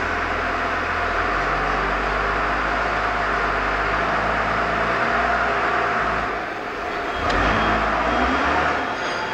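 A Komatsu FD40T forklift's diesel engine running steadily. It eases off briefly about six and a half seconds in, then picks up again.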